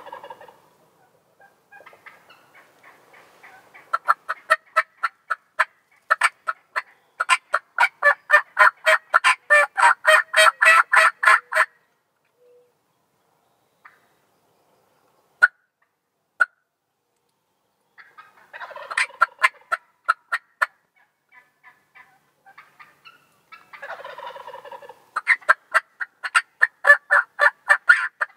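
Wild turkeys calling: long runs of rapid, sharp notes, about six a second, from about four to twelve seconds in and again near the end, with shorter rolling calls around nineteen and twenty-four seconds in.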